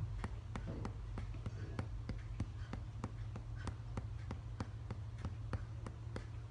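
Tok Sen massage: a wooden mallet tapping a wooden wedge held against the body, giving a steady rhythm of sharp wooden clicks about four a second over a low hum.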